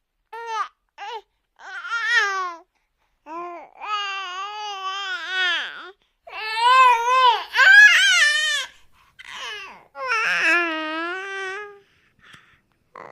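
Infant cooing and babbling: a series of drawn-out, wavering vowel sounds, some short and some held for a second or two, with short gaps between them.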